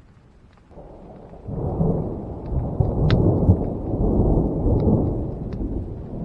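Thunder rolling: a low rumble that starts about a second in, swells sharply, stays loud through the middle, then slowly dies away.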